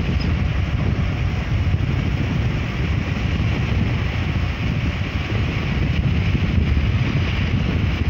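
Steady wind rush buffeting the microphone, over the low rumble of a car driving along a road.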